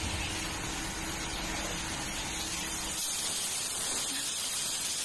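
Pressure cooker on a gas burner hissing steadily as steam escapes past its weight valve: the pot has come up to pressure. A faint low hum underneath drops away about three seconds in.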